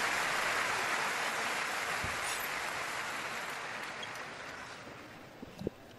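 Crowd applauding a won point in table tennis, fading away over about five seconds. Near the end a few short taps, a table tennis ball bouncing.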